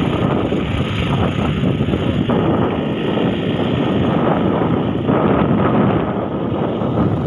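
Steady rushing noise of a moving vehicle on a country road: engine and road noise mixed with wind on the microphone.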